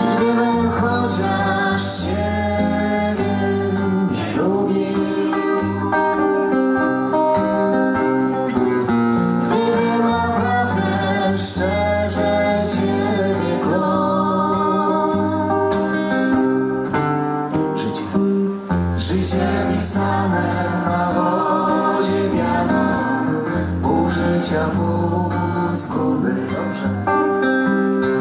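Two acoustic guitars playing a ballad together, with a voice singing over them.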